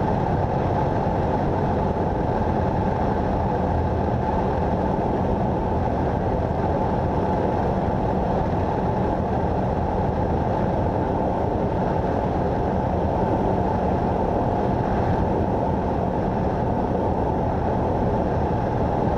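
Cessna 172's piston engine and propeller droning steadily, heard inside the cabin as a dense rushing noise with a low hum beneath it.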